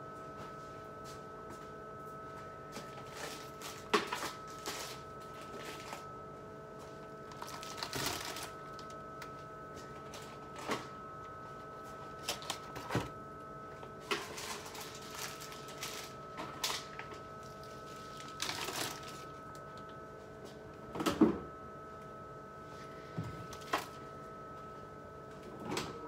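Condiment bottles and jars being taken out of a refrigerator's door shelves: irregular clinks, knocks and rustles, the loudest about 4 and 21 seconds in, over a steady electrical hum.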